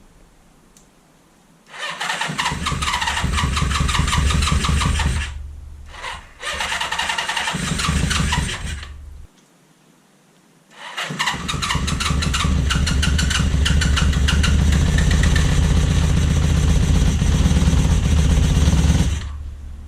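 Honda CB550 F2 Supersport's air-cooled inline-four being started: three start attempts, the first two about three seconds each with short breaks between them, the third running for about eight seconds before it stops.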